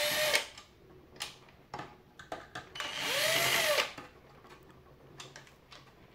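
Cordless drill/driver backing out screws in two short bursts, one ending about half a second in and another about three seconds in, the motor speeding up and winding down each time. Light clicks of handling between the bursts.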